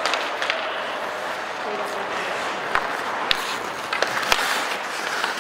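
Ice hockey play in an indoor rink: a steady scraping haze of skates on the ice, with a few sharp clacks of stick, puck and boards, the loudest between about three and four and a half seconds in, over spectators' voices.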